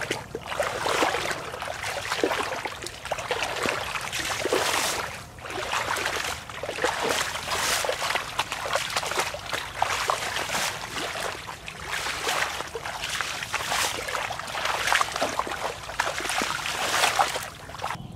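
Bare feet sloshing and splashing through shallow floodwater, a steady wading step about once a second.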